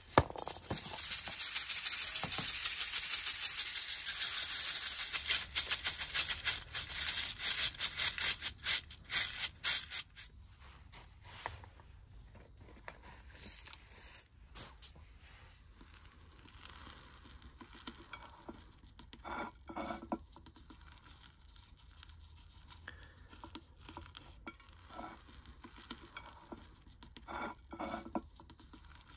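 Small-grain akadama soil rattling in a metal sieve and soil scoop: a loud, gritty rattle of grains for about the first ten seconds, fading out. After that, quieter scattered patters and rustles as the soil is scooped and poured into a plant pot.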